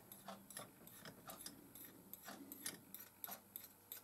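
Light, uneven clicking, about three or four clicks a second, of a metal spoon and a thin stirrer tapping against a small stainless steel cup as thick varnish is scraped off the spoon into it.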